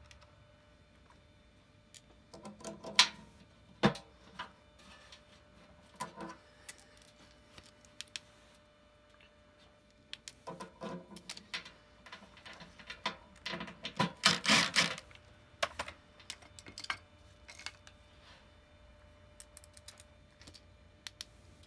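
Intermittent metallic clinks, taps and rattles of small parts and hand tools being handled against a sheet-metal furnace blower housing during fitting of a replacement blower motor, coming in short clusters with the busiest, loudest clatter about two-thirds of the way through.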